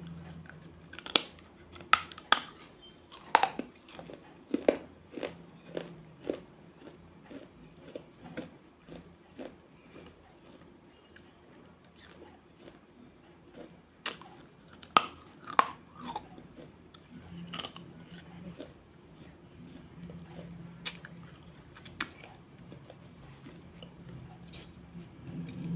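Baked clay pot being bitten and chewed close to the microphone: loud, crisp crunches as pieces are bitten off, then runs of smaller, rhythmic chewing crunches. A second cluster of hard bites comes about halfway through.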